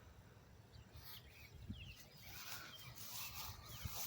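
Small birds chirping faintly several times, with soft swishing rustles through grass.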